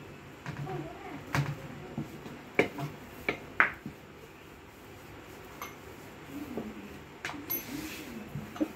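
Scattered knocks and clinks of kitchen utensils as chapati dough is handled on a steel plate and rolled out on a board, the sharpest knocks in the first half, with a short high ping near the middle.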